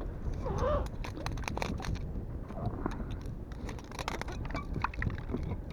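Irregular clicks, taps and scrapes of fishing tackle and bait being handled in a small boat, over a low wind rumble on the microphone.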